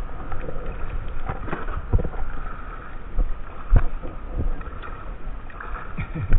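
Scattered knocks and bumps of a landing net, hook pole and gear against a plastic fishing kayak, over steady wind and water noise; the loudest knock comes a little under four seconds in.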